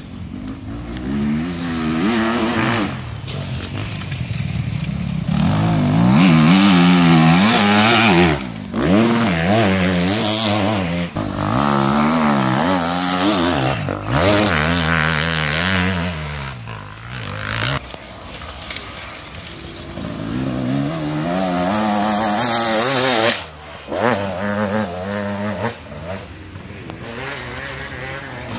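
Enduro motorcycle engines revving hard on a forest trail, the note rising and falling with throttle and gear changes as bikes come close and pull away.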